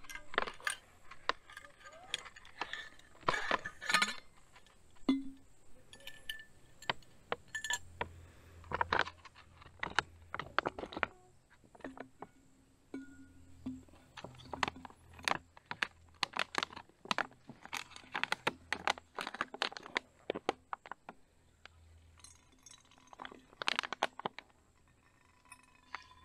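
Irregular clinks and clicks from a squeeze-bag water filter and a stainless steel water bottle being handled while filtered water is squeezed down into the bottle.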